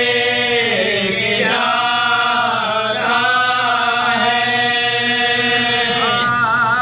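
Men's voices chanting a marsiya (Urdu elegy) together without instruments, in long drawn-out notes that glide from one pitch to the next.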